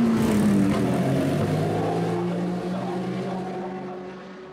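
Porsche 962 Group C race car's turbocharged flat-six engine running at low, steady revs as the car pulls away, fading as it moves off.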